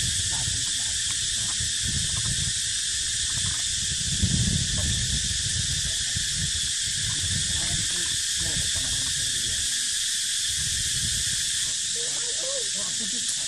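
A steady, high-pitched chorus of insects fills the background, over irregular low rumbles, the strongest about four seconds in.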